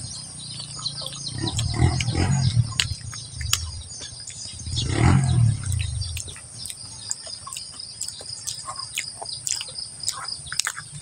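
Birds chirping in the background, with two louder low rumbling sounds, one about two seconds in and a stronger one about five seconds in.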